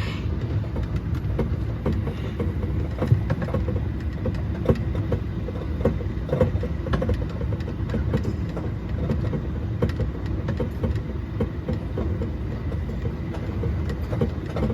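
Mall ride train running along with a steady low rumble, its carriages giving off frequent irregular rattling clicks and knocks.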